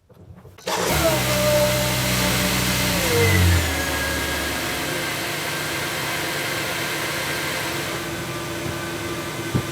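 Volvo S80 3.2's straight-six engine starting about a second in, running at a raised speed for a few seconds, then settling to a steady idle. The power-steering pump, just bled after a new reservoir-to-pump line, runs without the whine of foaming fluid.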